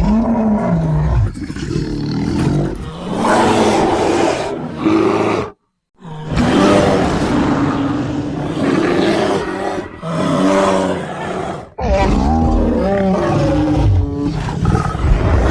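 Edited bear roars and growls made as sound effects for the extinct giant short-faced bear Arctotherium, several long deep calls one after another. They break off into a moment of silence about five and a half seconds in, and there is an abrupt cut to a new roar near twelve seconds.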